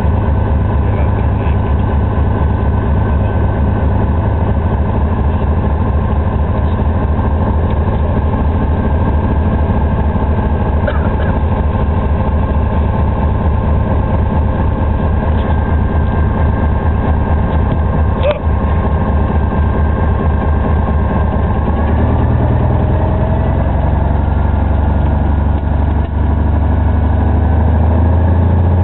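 Cessna 180's six-cylinder Continental O-470 piston engine and propeller running steadily, heard from inside the cockpit. The engine note shifts about three-quarters of the way through and grows a little louder near the end.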